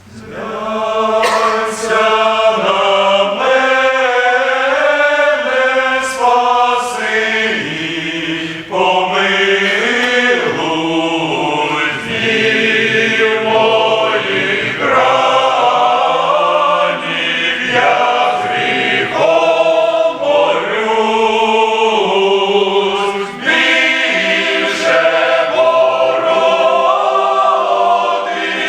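Men's choir singing a hymn in Ukrainian, entering right at the start after a moment of quiet and carrying on in full voice through several phrases.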